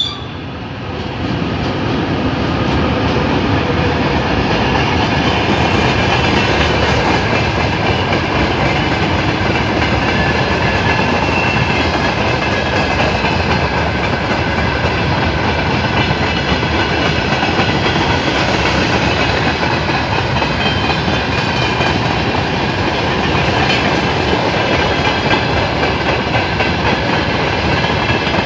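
Passenger train running past on the rails, a steady loud clatter and rumble of wheels on track with faint high ringing tones over it. It comes up louder about a second in.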